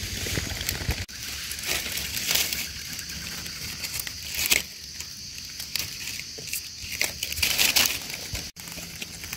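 Dry leaf litter rustling and crackling in short, irregular bursts as it is disturbed, louder about four and a half seconds in and again near the end.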